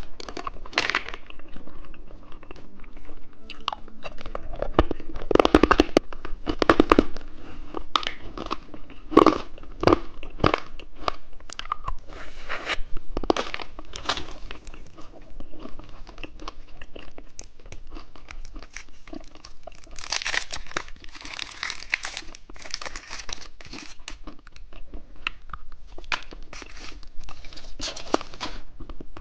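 Close-up eating sounds of candy snacks: crinkling and tearing of plastic wrappers, with biting, crunching and chewing.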